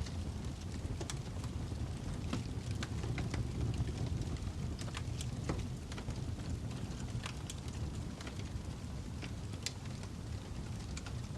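Wood logs burning in a fireplace: a steady low rush of flame with irregular sharp crackles and pops scattered throughout.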